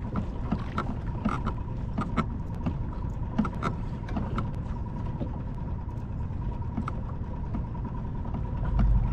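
Low steady rumble of wind and water around a kayak, with irregular sharp clicks and taps a few times a second and a faint steady tone; the rumble swells near the end.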